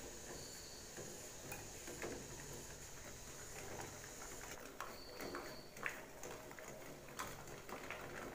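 Metal spoon faintly clicking and scraping against a ceramic bowl while stirring chocolate melting over a water bath. A faint steady hiss stops just over halfway through.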